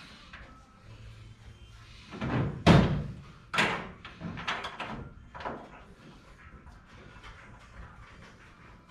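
A heavy bang about two and a half seconds in, then a second strong knock about a second later and a few lighter knocks, each with a short ring after it.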